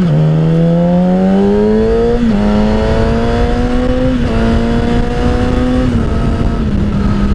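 Yamaha R6's inline-four engine accelerating through the gears, its pitch climbing and dropping at each upshift at the start and about two and four seconds in. Near six seconds it eases off and holds a steady cruise, with wind rush on the helmet mic.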